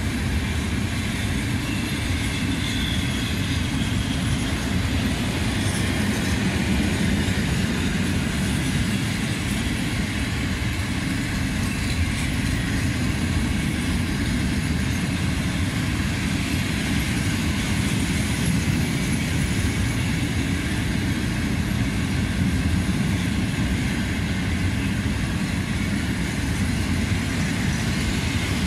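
A long train of empty covered cement hopper wagons rolling steadily past on the track: a continuous rumble of steel wheels on rail.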